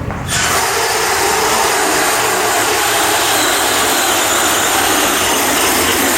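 Small two-stroke engine of an RC pulling truck running flat out. It sets in abruptly with a steady, high-pitched scream that holds level throughout.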